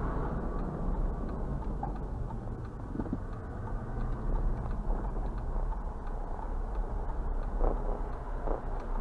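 Car driving slowly: steady low engine and road noise heard from inside the vehicle, with a few faint ticks.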